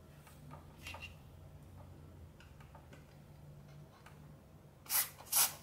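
WD-40 aerosol can sprayed in two short hissing bursts near the end, flushing the crackling volume control potentiometer of a Crown CSC-850F boombox. Before that, faint clicks and taps of handling.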